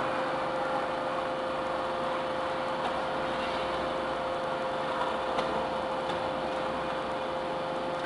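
Enerpat double-ram hydraulic metal baler running: a steady machine hum with one constant whine and a couple of faint clicks.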